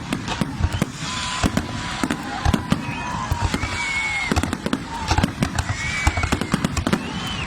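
Fireworks display: a rapid string of bangs and crackles, with several whistling fireworks whose pitch holds and then arches up and down.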